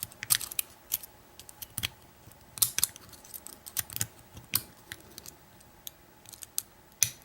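Metal hook pick and tension wrench clicking irregularly against the pin stacks inside an American Lock 1100 padlock as it is single-pin picked, with a louder click near the end.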